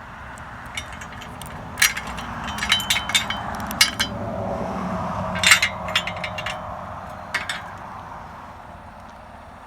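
A handful of sharp clicks and knocks over a low rumbling noise that swells in the middle of the stretch and then fades.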